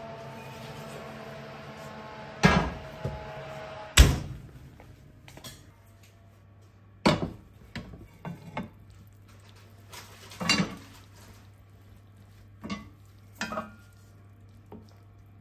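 Kitchenware being handled: a string of separate knocks and clinks, the loudest two in the first four seconds, then several lighter ones spread through the rest.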